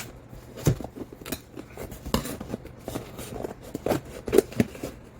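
A delivery parcel's packaging being opened by hand: a string of irregular sharp clicks and crinkles.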